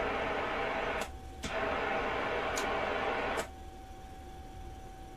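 Amateur radio receiver hiss from a two-metre AM set's speaker. It breaks off briefly about a second in, comes back, and cuts off with a click about three and a half seconds in, leaving a faint steady whistle.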